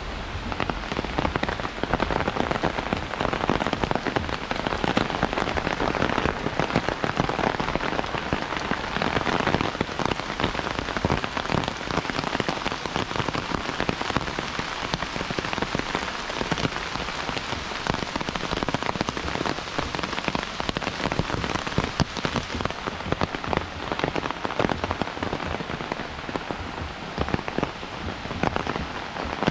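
Heavy rain falling, with a dense run of separate drops hitting close by; it grows louder about a second in.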